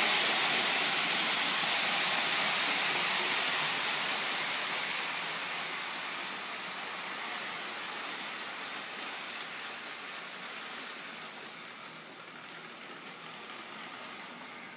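Lionel model steam train running on FasTrack, a steady hissing rush of running noise that fades as the train moves away around the layout.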